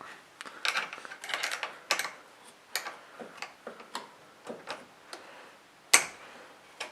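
Wrenches working the clamp bolt on a car battery terminal: a run of irregular metal clicks and ticks, with one sharp click about six seconds in.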